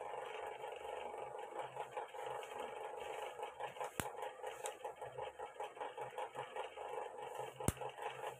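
Two sharp clicks, about four seconds apart, as the Huawei Honor phone's back cover is pressed on and clips into place. Behind them runs a steady mechanical hum that pulses about four times a second.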